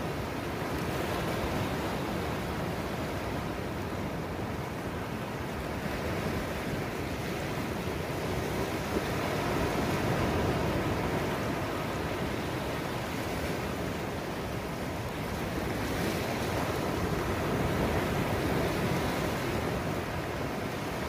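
Small surf breaking and washing up a sandy beach and over low rocks, a steady rushing wash that swells a little twice as waves come in.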